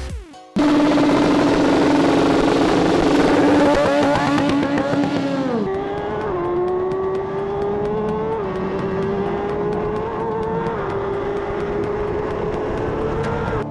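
Racing motorcycle engine held at high revs, then the pitch drops sharply and it accelerates up through the gears, the note climbing and dropping at each upshift about every two seconds.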